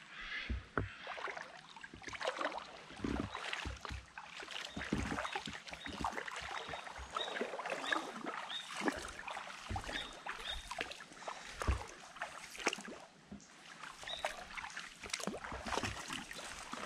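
Water splashing and sloshing with irregular low knocks and thumps as someone moves through a shallow creek.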